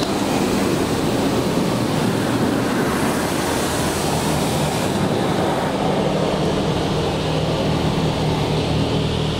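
Water jets from a LaserWash touch-free car wash's pivoting spray arm blasting against the car's body and windows, heard from inside the cabin as a loud, steady rushing hiss. It turns hissier for a couple of seconds about three seconds in, and a steady low hum runs underneath.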